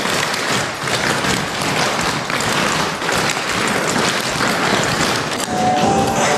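Clogging shoes' metal taps clattering on a stage floor, many dancers at once in a dense, fast stream of taps. Music comes in near the end.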